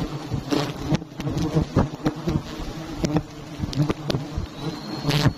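A swarm of giant honey bees (Apis dorsata) buzzing around their nest, a dense steady hum of many wingbeats, with scattered short clicks and knocks throughout.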